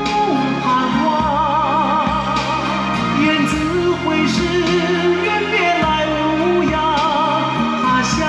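A song with a singer holding long notes with vibrato over steady accompaniment, played back through Yamaha NS-500 two-way loudspeakers (beryllium-dome tweeter) driven by a Yamaha B-2 V-FET power amplifier.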